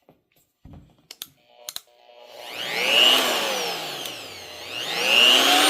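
Bauer 3-inch corded cut-off tool with a 6-amp, 20,000 rpm motor, switched on in short pulses. After a few clicks, the motor whines up in pitch about two seconds in and winds down, then spins up again near the end. It takes a moment to come up to speed and runs smoothly, without a kick.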